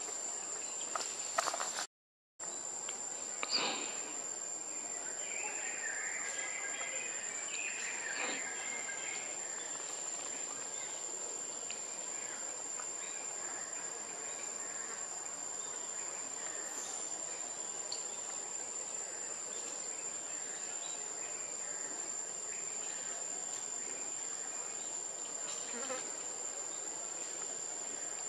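A steady, high-pitched insect drone that holds one unbroken tone. It cuts out briefly about two seconds in, and a few faint chirps and clicks come through in the first ten seconds.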